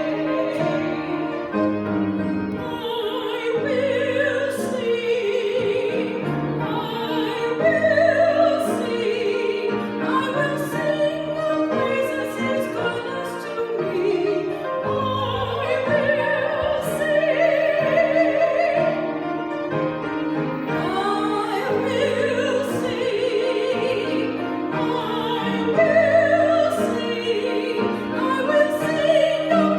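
A singer in a classical style over instrumental accompaniment, holding long notes with a wavering vibrato.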